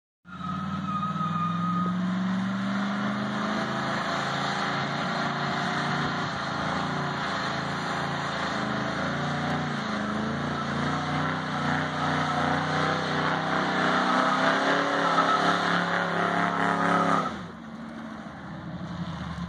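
The 1952 Plymouth Cranbrook's engine is held at high revs in a burnout, rear tyres spinning and squealing on the pavement. The loud revving drops off suddenly about seventeen seconds in to a lower, steadier engine sound.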